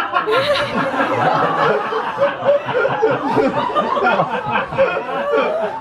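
An audience laughing, many voices overlapping.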